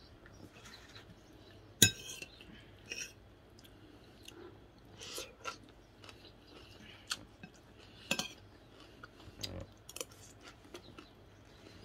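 Eating: quiet chewing between scattered short clinks and taps of a metal spoon on a plate, with one sharp knock about two seconds in the loudest.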